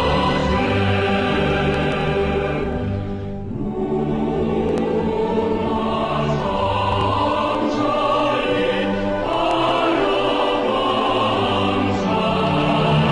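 Choral music: a choir singing long, held chords over orchestral accompaniment. It dips briefly about three and a half seconds in, and the chords change twice later on.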